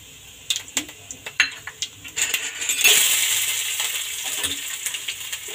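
Mustard and cumin seeds crackling in hot oil in a kadai, with sharp scattered pops. About two seconds in, chopped onion goes into the oil and a loud sizzle starts, then slowly fades.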